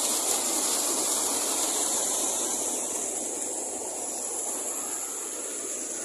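Water pouring over a small concrete weir into a river pool, a steady rushing noise that eases slightly about halfway through.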